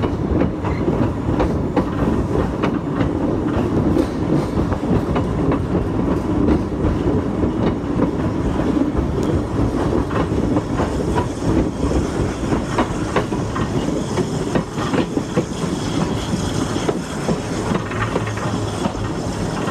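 Freight train cars rolling past close by: steel wheels clicking over the rail joints above a steady rumble, with a higher hiss joining in the second half.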